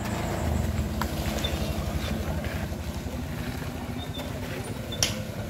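Mitsubishi Fuso Canter light truck's diesel engine running with a steady, rapid low throb as the truck creeps over a rutted dirt road. A sharp click sounds about a second in, and another comes near the end.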